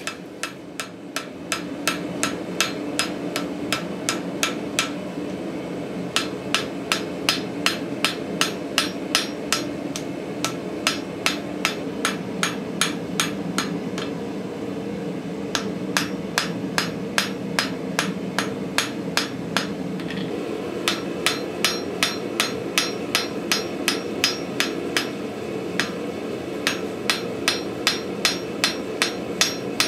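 Hand hammer striking hot cable Damascus steel on an anvil at a steady rhythm of about two blows a second, each blow ringing, with a few short pauses. The blows are thinning the eye section of an axe blank. Under the blows the forge runs with a steady roar.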